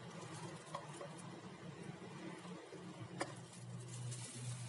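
A few faint clicks and taps of plastic parts being handled and fitted over a low hum, with a steadier low hum coming in near the end.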